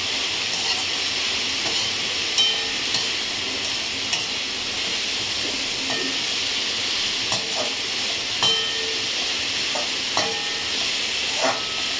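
Shredded vegetables sizzling steadily as they are stir-fried in a metal kadhai over a high gas flame, with a slotted metal spoon scraping and clinking against the pan now and then.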